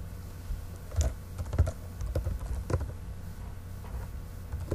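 Typing on a computer keyboard: about six separate keystrokes, unevenly spaced.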